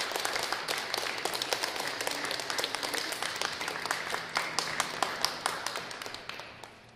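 Audience applauding at the end of a piece, with many separate claps heard in the applause, fading away near the end.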